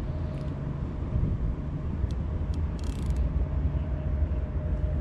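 Steady low rumble of distant road traffic with a faint steady hum, and a few faint clicks near the middle.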